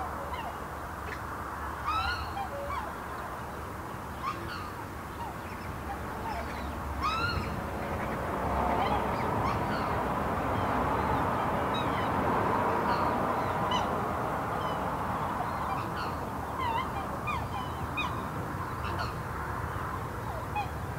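Black swans giving short, rising, honking bugle calls, repeated many times, over a steady rush of highway traffic that swells through the middle.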